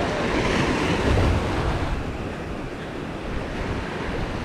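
Surf washing up the beach, swelling about a second in, with wind buffeting the microphone.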